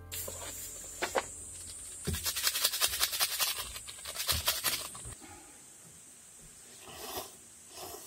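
Plastic sauce packet crinkling and rustling rapidly as it is squeezed out over a foam cup-noodle bowl for a few seconds, over a steady high hiss. Near the end come a couple of short slurps of noodles.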